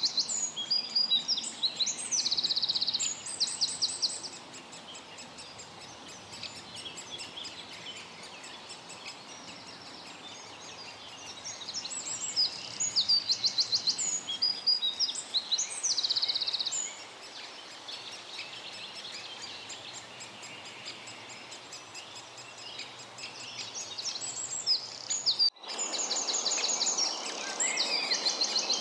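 Songbird singing in bursts of quick, high-pitched chattering and trilled phrases, with quieter stretches between; a sudden break about three-quarters of the way through, after which the singing goes on.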